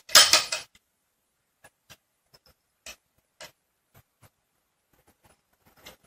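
Metal bail drawer pull on a wooden dresser being batted by a cat's paw and clacking against the drawer front: a loud rattle of several clacks at the start, then single lighter clicks every second or so.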